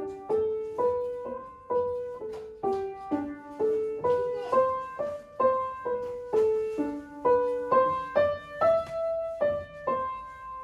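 Piano played by a child: a slow, simple melody of single struck notes, about two a second, each ringing out before the next, ending on a held note.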